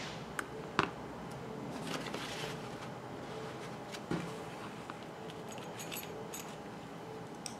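A few light clicks and metal clinks from a small model glow engine being handled and set down, over a faint steady hiss.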